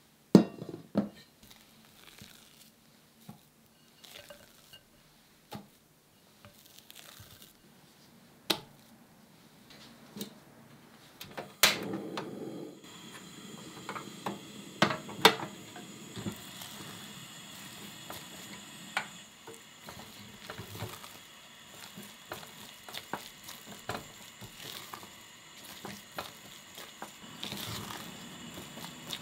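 A silicone spatula scraping and knocking thick mashed sweet potato from a glass bowl into an enamel pot. About twelve seconds in, a portable gas stove is lit and its low burner hisses steadily while the spatula stirs and scrapes the paste in the pot.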